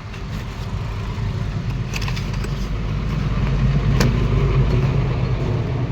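An engine running steadily, its hum growing louder toward the middle and then easing off, with a sharp click about four seconds in.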